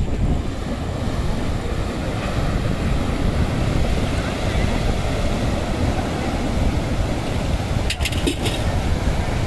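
Sea waves rolling in and breaking on a rocky shore, with heavy wind buffeting the microphone into a steady low rumble. A few brief sharp sounds come about eight seconds in.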